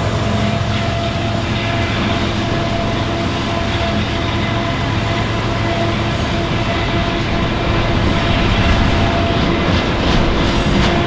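CN freight train rolling by on the track: a steady, loud rumble of the rolling train, with a faint thin steady whine from the wheels through most of it.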